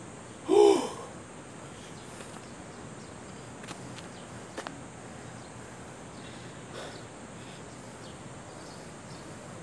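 Steady outdoor background hiss, broken about half a second in by one short, loud voiced sound from a man close to the microphone, falling in pitch. A couple of faint clicks come a few seconds later.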